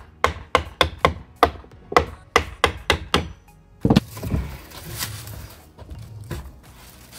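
Hammer driving fixing pins into fascia board: a quick run of sharp strikes, about three a second for three seconds, then a heavier blow about four seconds in. Background music plays throughout.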